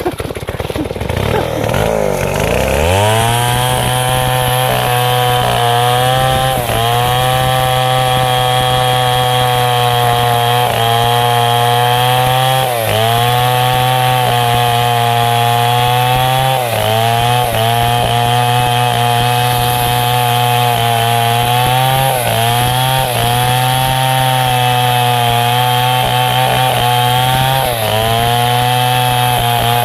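Stihl two-stroke chainsaw revving up from idle about two seconds in, then running at full throttle while cutting teak wood, its pitch sagging briefly every few seconds as the chain bites under load.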